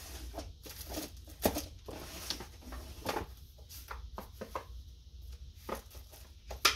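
Scattered light taps and clicks with faint paper rustling, from paper and card stock being handled on a craft table; a few sharper taps stand out, one near the end.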